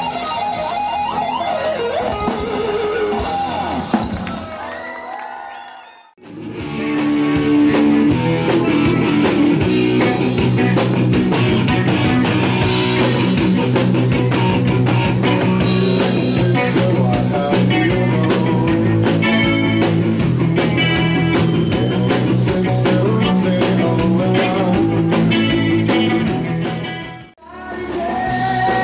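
Live rock band playing, led by acoustic and electric guitars, with singing. The music drops out briefly about six seconds in and again near the end, coming back each time as a different passage.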